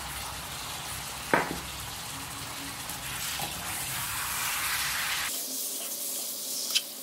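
Raw snakehead fish pieces being stirred through a wet chilli-oil marinade in a metal bowl with a metal ladle and a wooden spatula: a steady wet stirring and scraping noise, with one sharp clink of the ladle against the bowl after about a second.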